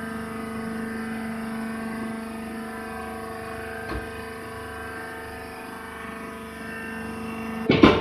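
Steady hum of a hydraulic rice husk baler's power unit running, with a single click about four seconds in. A brief loud knock comes just before the end.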